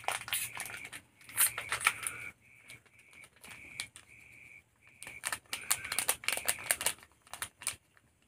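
Crackling of a plastic spice packet being handled, opened and emptied of chili powder, in two bouts of sharp crinkles. A high-pitched chirp repeats in short bursts between them.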